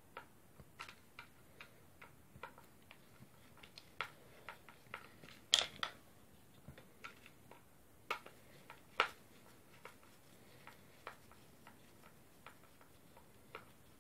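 Screwdriver turning out screws from a cordless SDS drill's housing: light, irregular clicks and ticks of the blade in the screw heads and the hand regripping the handle, about two or three a second, with a few louder clicks in the middle.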